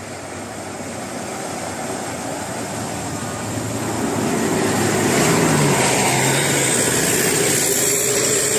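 A bus approaching, its engine and road noise growing steadily louder, with a low engine hum coming through about five seconds in.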